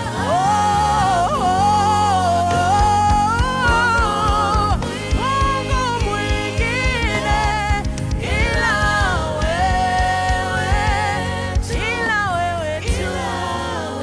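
Gospel song: a solo voice singing over instrumental accompaniment.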